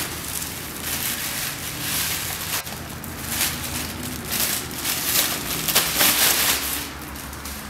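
Clear plastic bag crinkling and rustling as hands pull at it and open it, unevenly, loudest around six seconds in.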